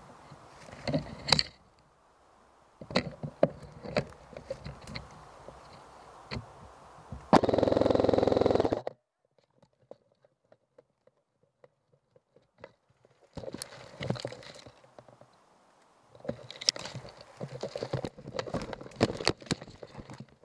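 Handling noise of an ICS G33 airsoft electric rifle carried and moved through brush: scrapes, rubbing and knocks. About seven seconds in comes one loud burst lasting about a second and a half, the rifle firing full-auto.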